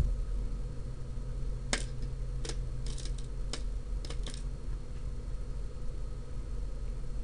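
Small sharp clicks and snips of hand tools and breadboard jumper wires being handled, about six in a loose run between two and four and a half seconds in, over a steady low hum.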